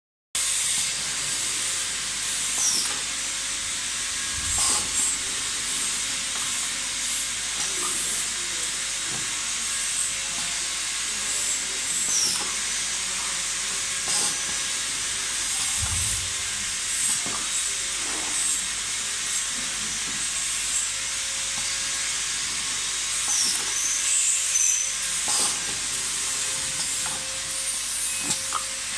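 A tray-sealing machine working: a steady hiss with a faint hum, two deep clunks about 5 s and 16 s in, and scattered clicks and short squeaks as the machine cycles.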